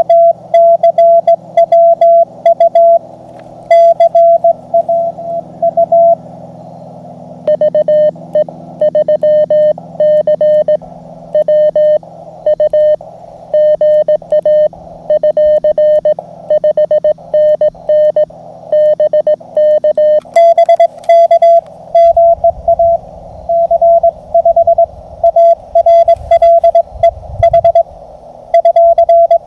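Morse code (CW) from an MTR Mountain Topper QRP transceiver: a single steady tone keyed on and off in dots and dashes. From about a quarter of the way in to about two-thirds, the keyed tone is slightly lower in pitch before the higher tone returns, as the operator's sidetone and an answering station take turns in a contact.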